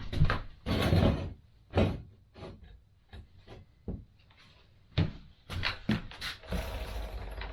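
Irregular knocks, clunks and scrapes of hands working with tools and gear while lifting a small motorcycle to remove its rear wheel, with a longer rubbing scrape about a second in and another near the end.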